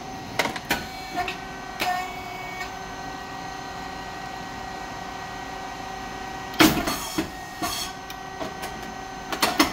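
SYP8002 rice cake puffing machine running: a steady hum from its hydraulic pump motor and cooling fan, with scattered clicks of valves and mechanism. About two-thirds in, a loud short burst as a cycle ends and the moulds release, popping the rice cakes.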